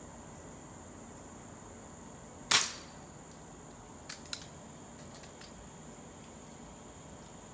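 Beeman P1 .177 spring-piston air pistol firing a single shot, a sharp crack with a short tail, about two and a half seconds in. Two lighter clicks follow about a second and a half later.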